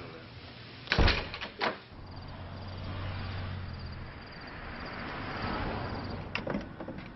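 A door being shut: one loud thump about a second in, followed by two smaller knocks, then a steady noisy background.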